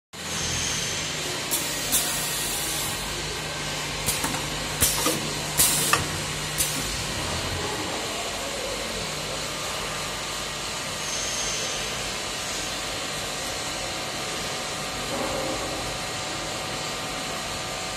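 Pneumatic clamps and cylinders of a two-head uPVC window welding machine actuating, with about eight short, sharp hisses of compressed air within the first seven seconds. A steady machine hum and hiss runs underneath.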